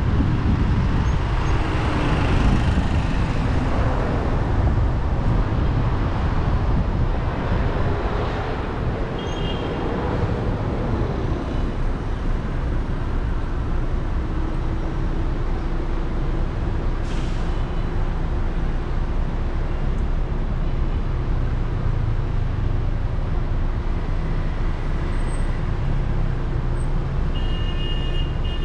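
Road traffic: vehicles passing with engine and tyre noise over a steady low rumble, a few engine notes rising and falling in the first dozen seconds.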